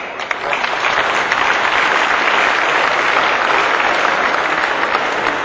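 Audience applauding: many people clapping together, steady and dense, easing off slightly near the end.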